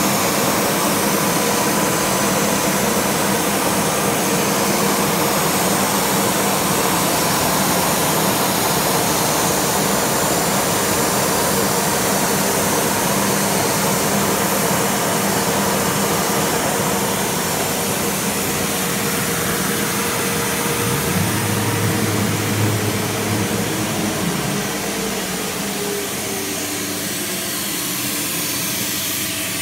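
CNC router running with its spindle and dust-extraction hose drawing air: a steady, dense machine noise with a few steady hums. About two-thirds of the way through, a deeper hum comes in for a few seconds, then the noise drops slightly.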